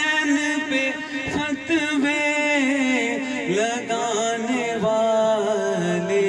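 A man chanting a manqabat, devotional Urdu verse in praise of Husain, in a melodic recitation. He draws out long held notes that bend in pitch.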